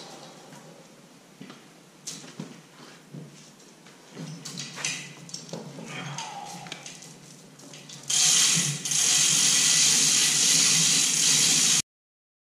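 Scattered light clinks and knocks of tools and metal parts being handled. About eight seconds in, a loud steady rushing hiss starts suddenly, breaks briefly, resumes and cuts off abruptly near the end.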